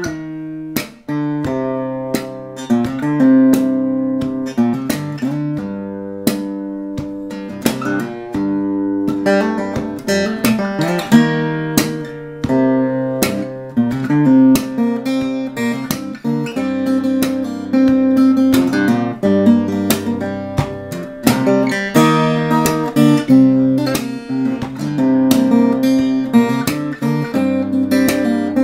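Solo steel-string acoustic guitar in open tuning C G C G Bb D, played with a mix of picked notes and strums, with frequent sharp percussive strokes over ringing low notes.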